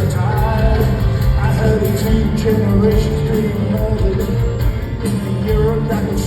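Rock band playing live, heard from the audience in a concert hall: a full band sound with a steady beat and a melodic line, likely vocals, on top.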